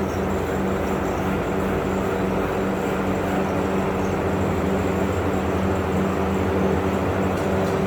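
Steady mechanical hum: a constant low drone with a rushing noise, unchanging.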